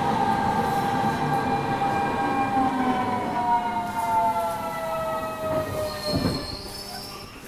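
Kyoto Municipal Subway Tozai Line 50 series train heard from inside the car as it brakes to a stop. The electric motor whine falls steadily in pitch and cuts out about six seconds in as the train halts, with a faint high squeal near the end.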